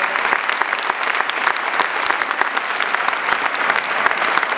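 Audience applauding steadily: many hands clapping together in a dense, unbroken patter.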